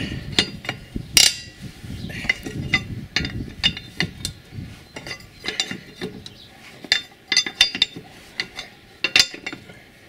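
Steel wheel wrench with a pipe extension clicking and clinking against a wheel bolt as the loosened bolt is turned out, in irregular sharp clicks, several a second.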